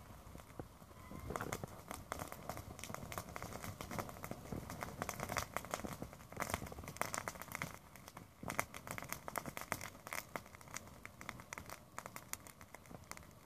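Small pile of dry brush and twigs burning in open flames, crackling with many quick, irregular snaps and pops.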